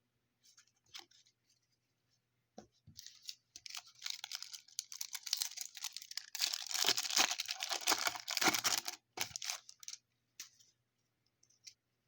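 Crinkly wrapper of a trading-card pack being torn open and crumpled. It is a dense crackle that builds from about three seconds in, is loudest about two-thirds of the way through, then stops, with a few light clicks before and after.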